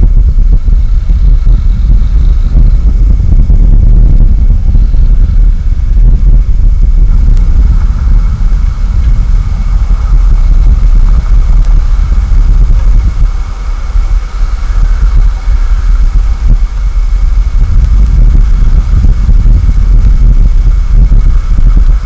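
Wind buffeting an outdoor microphone: a loud, uneven low rumble that eases off for a few seconds about two-thirds of the way through.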